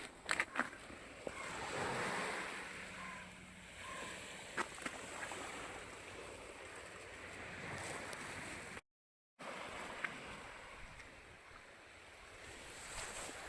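Sea surf washing on the shore, an even rushing noise, with a few sharp clicks near the start and the sound cutting out completely for about half a second around nine seconds in.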